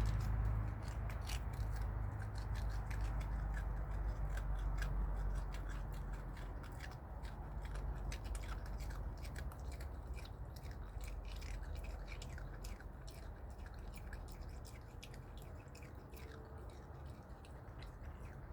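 Opossum chewing ginger snap cookies: a quick run of crisp crunches over a steady low hum, growing fainter toward the end.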